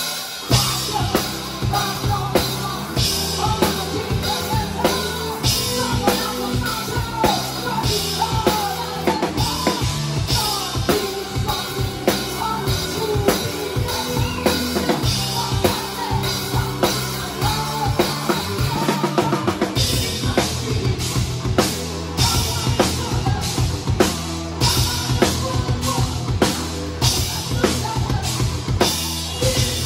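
Drum kit played live in a rock band, heard close from the drummer's position: kick, snare and cymbal strokes over bass and a melody line. Just after halfway the low end drops out for a moment, then the full band comes back in with denser drumming.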